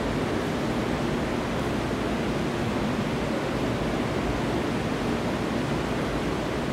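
Steady, even rushing of running water, unchanging in level; no chewing stands out above it.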